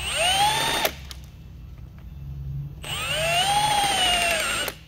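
Electric drill cutting into the lead terminal post of a new industrial battery cell, dressing the post so the connecting strap fits on well. It runs twice, first for under a second and then for about two seconds, the whine rising as it spins up. The first run cuts off sharply and the second sags in pitch before stopping.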